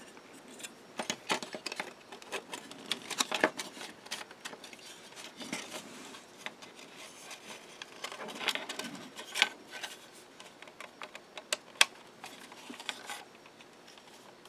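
Light, irregular clicks and taps of a plastic model roll cage being handled and pressed into a plastic model car body for a test fit, with a few sharper clicks among them.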